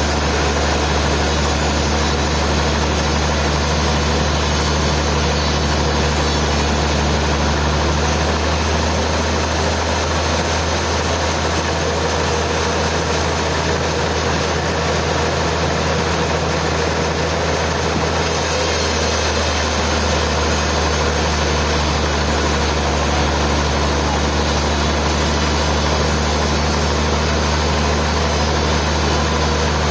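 Sawmill machinery running steadily: a constant, loud mechanical drone with a low hum, its upper tone shifting slightly for several seconds in the middle.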